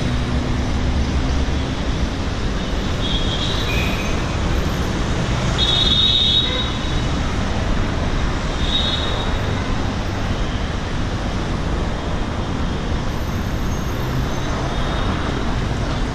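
Steady road traffic on a busy city street: cars and buses running past in a continuous rumble, with a few brief high-pitched tones a few seconds apart.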